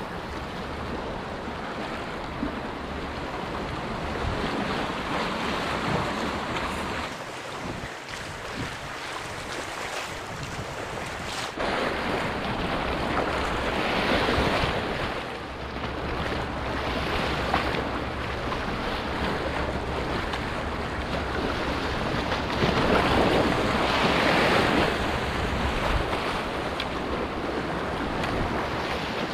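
Sea waves washing and splashing against shoreline rocks, swelling louder every several seconds, with wind buffeting the microphone.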